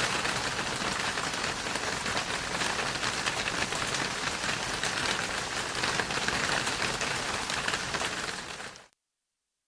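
Falling hail: a dense, steady clatter of many small hailstones striking a surface. It fades out about eight and a half seconds in, and silence follows.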